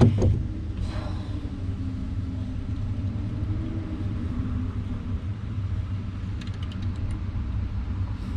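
A steady low rumble with a faint, slowly wavering hum above it, and a few faint ticks about two-thirds of the way through.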